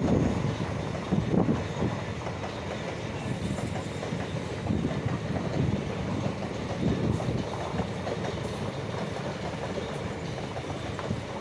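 Indian Railways passenger train coaches passing at speed: a steady rumble of wheels on rail, with repeated louder clacks as the wheels run over the rail joints.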